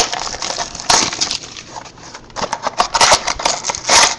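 Trading-card mini box being torn open by hand: irregular crackling and crinkling of cardboard and wrapping, loudest about a second in and again near the end.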